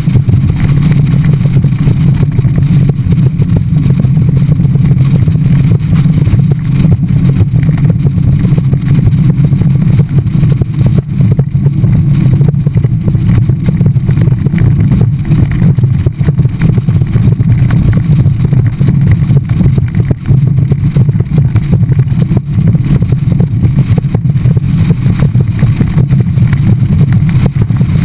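Skeeter bass boat under way. Its outboard engine and the hull running through the water make a loud, steady rumble, mixed with wind rushing over a camera on the bow.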